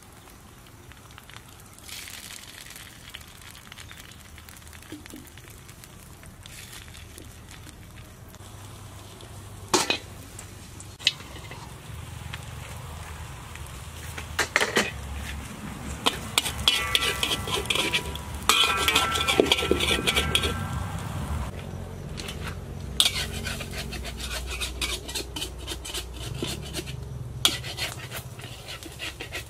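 A metal spoon scrapes and clinks against an aluminium wok while a beaten-egg mixture fries with a quiet sizzle. The clinks are sparse at first and come thick and fast in the second half.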